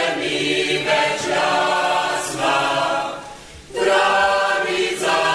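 Choir singing in long held notes, fading briefly about three seconds in and then coming back.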